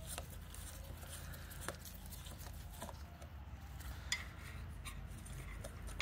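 Phillips screwdriver backing a small screw out of a motorcycle turn-signal lens housing: faint, scattered clicks and scrapes of metal on metal over a low steady background.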